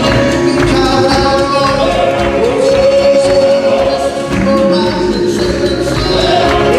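Southern gospel male quartet singing live with backing music and percussion. The lead voice slides up into a long held note about two and a half seconds in, with the other voices in harmony beneath.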